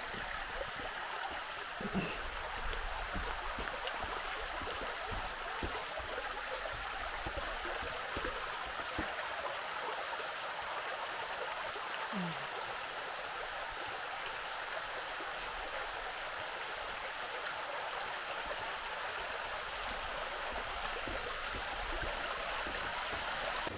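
Water flowing steadily along a levada, a narrow stone irrigation channel, heard as an even, unbroken hiss.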